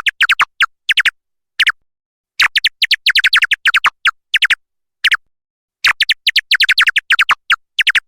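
Bat calls: quick series of short chirps, each sweeping downward in pitch, coming in clusters of several with silent gaps between.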